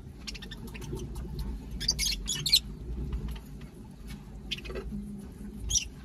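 Small parrots (budgerigars and lovebirds) feeding on chopped greens: many small pecking and nibbling clicks, with short, sharp high chirps about two seconds in and again near the end.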